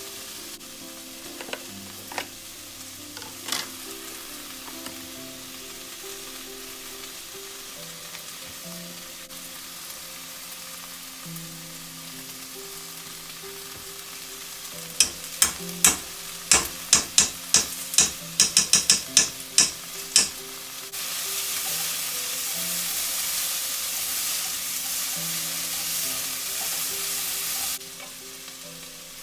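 Kitchen sounds of instant ramen being made in a mess tin, over soft background music. About halfway through comes a run of quick, sharp knocks for several seconds; then a louder steady hiss for about seven seconds stops suddenly.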